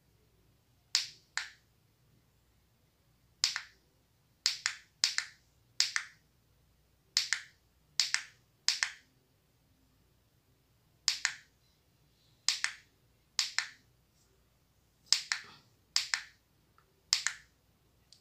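Mode button on a Christmas-light controller pressed again and again, stepping the light string through its flashing patterns: about fifteen sharp clicks at irregular intervals, several in quick pairs.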